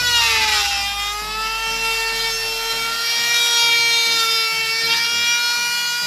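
Corded handheld electric power tool running at high speed with a high whine, its pitch sagging as it bites into a wooden plank about half a second in, then holding steady, with a small dip near the end.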